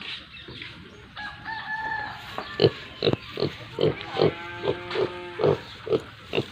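Pig grunting in a quick, regular run of short grunts, about two a second, with longer drawn-out animal calls mixed in.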